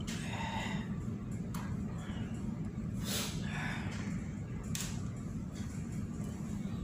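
A steady low machinery hum. Soft rustles and a few light clicks come from hands handling nylon fishing line and a small clear plastic piece, twice rustling more clearly, about half a second in and about three seconds in.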